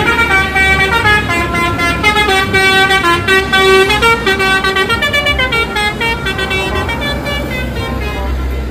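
Telolet bus horn, a multi-tone air horn, playing a stepping melody of several notes at once over a low engine rumble.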